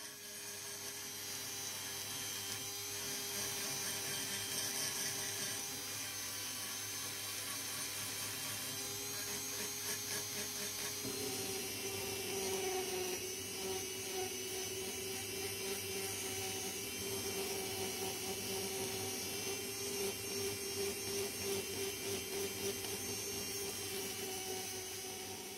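High-speed rotary tool with a small abrasive bit grinding rough spots off grey-primed metal parts. It makes a steady high whine that shifts slightly about halfway through and wavers in loudness as the bit is pressed on and eased off.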